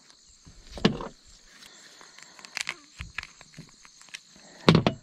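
Hands peeling the skin and breast from a freshly shot pigeon: quiet rustling of feathers and soft tearing and handling noises, with sharper knocks about a second in and near the end.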